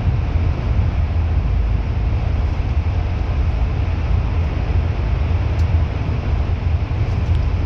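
Steady low engine and road rumble inside a moving bus, with no marked changes.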